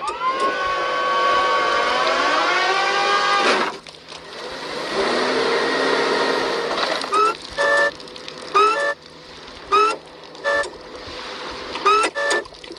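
Cartoon whale screaming as forklift forks push into it: one long wailing cry whose pitch bends and wavers, then a noisy stretch, then a string of short rising squeals about once a second.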